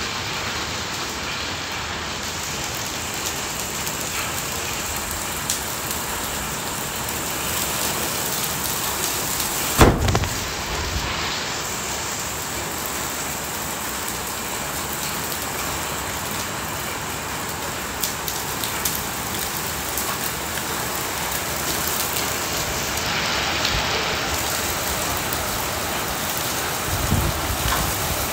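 Steady hiss of heavy rain mixed with small hail striking a wet concrete driveway. A sharp thump about a third of the way in and a lower, softer bump near the end stand out over the rain.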